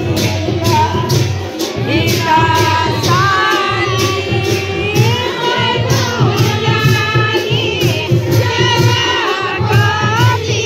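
A group of women singing together in unison, their voices rising and falling through the song, over an even beat of about two sharp strokes a second, with crowd noise behind.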